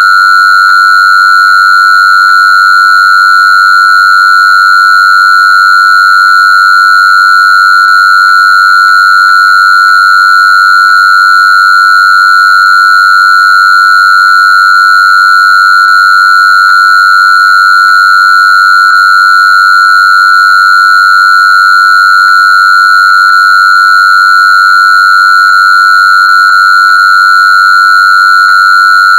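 A single loud, steady electronic tone, high-pitched and unchanging, with fainter higher overtones above it.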